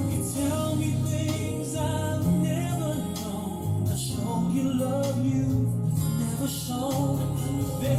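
Background music: a slow love song with guitar, in an instrumental passage between sung lines.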